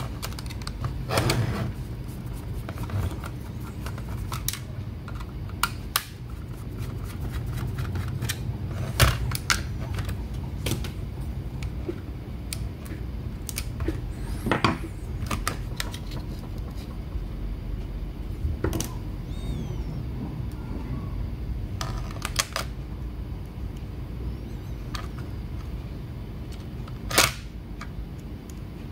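Irregular clicks and taps of small hard parts being handled: a laptop HDD caddy being taken apart and its drive connector moved, over a steady low hum. The sharpest clicks come about a third of the way in, halfway through and near the end.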